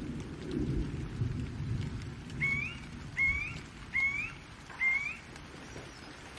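Distant thunder rumbling low under steady rain. Near the middle, a bird calls four times: short rising whistled notes about a second apart.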